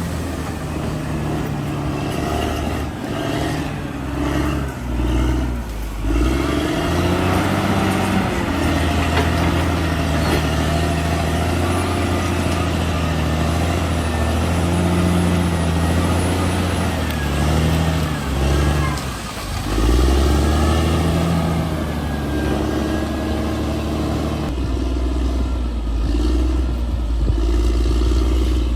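Bulldozer's diesel engine running under varying load, its note rising and falling every second or two, with sudden shifts a few times.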